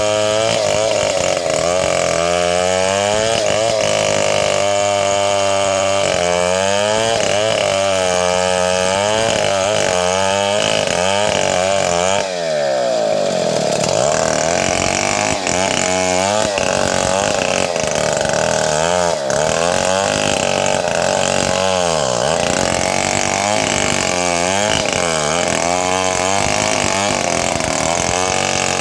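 Chainsaw running at high speed while cutting wood, its engine pitch sagging and recovering over and over as the chain bites. About twelve seconds in, the engine drops briefly in speed and climbs back.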